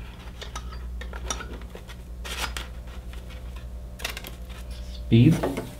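Scattered clicks and light knocks of hands working a PC fan controller and test gear, over a steady low hum from the running fan setup.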